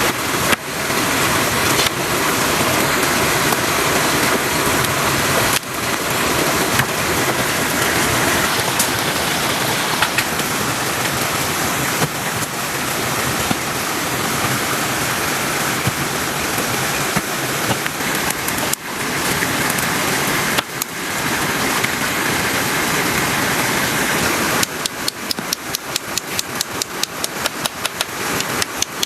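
Heavy rain falling in a dense, steady hiss. Near the end it turns into a rapid, even pulsing, about four beats a second.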